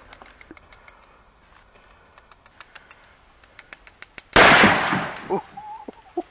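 A single rifle shot about four seconds in, loud and sharp, with a tail that dies away over about a second.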